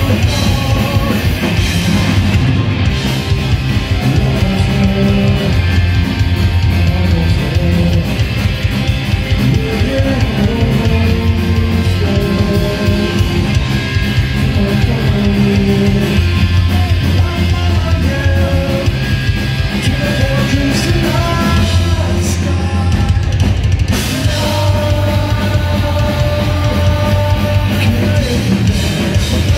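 A live punk rock band playing loud and fast: distorted electric guitars, bass and a drum kit, with a singer.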